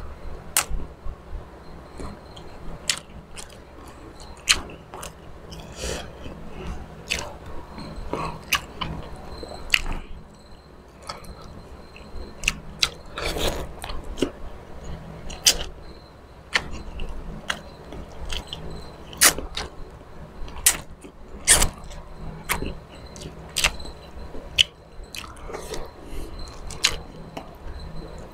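A person eating with his hands close to the microphone: chewing, with irregular sharp smacks and clicks as fingers pick apart milkfish on a plate.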